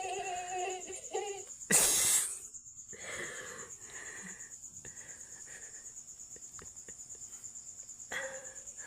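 High-pitched mosquito whine, a prank buzz sound effect, running steadily. A loud breathy burst about two seconds in is the loudest sound.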